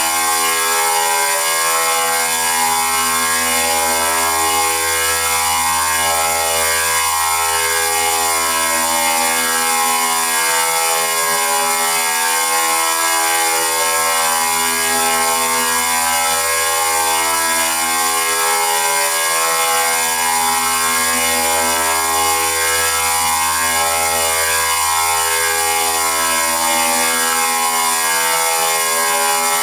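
Synthetic electronic robot sound effect made with the Autotunebot app: a dense, buzzy pitched drone whose many tones keep shifting in short steps, at an even loudness throughout.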